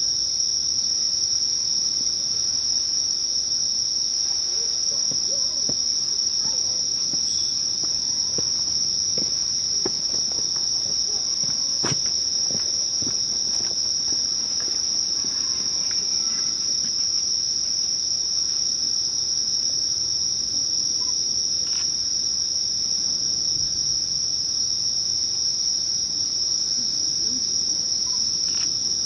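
Steady, unbroken high-pitched chorus of night-singing insects, with a few faint short knocks in the first half.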